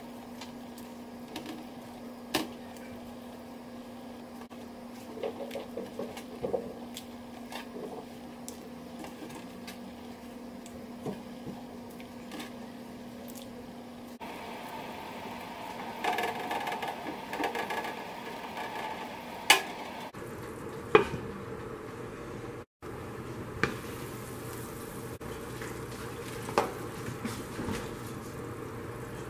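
Pot of seafood-boil broth bubbling on a gas stove, with scattered clicks and knocks of a utensil against the pot. A steady hum underlies the first half, and the bubbling grows denser in the middle.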